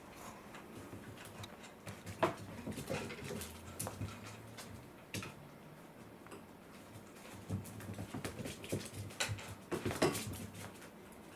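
A pet moving about: irregular taps and scuffles, with a sharper knock about two seconds in and another near the end.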